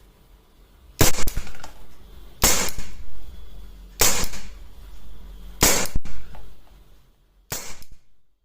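Umarex Beretta M92 CO2 BB pistol firing five shots, about one every one and a half seconds, each a sharp crack that trails off briefly.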